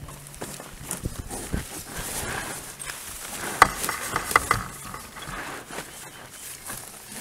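Handling noise as a backpack is strapped onto an inflatable packraft's bow: fabric and strap rustling with scattered knocks, and a quick run of sharp clicks about halfway through.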